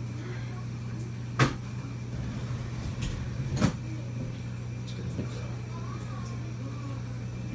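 Two sharp knocks about two seconds apart, over a steady low hum.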